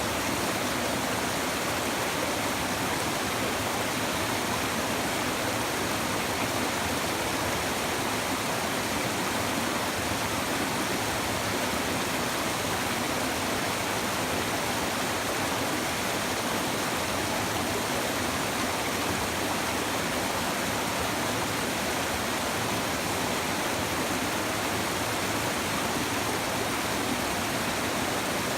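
A river stream babbling and rushing over rocks, a steady, even wash of water noise with no breaks.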